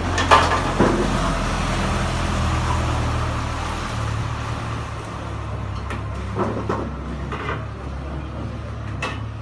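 A vehicle engine's steady low rumble with street traffic noise, easing after about four seconds, and a few light clinks of cooking utensils in the second half.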